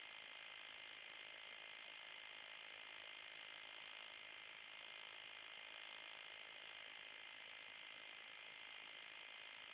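Near silence: a steady faint hiss, the noise floor of a phone's microphone.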